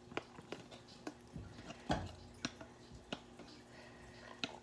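Spoon scraping blackberry jam off a potato masher over a stainless steel saucepan: scattered light clicks and taps at irregular spacing, with one heavier knock about two seconds in.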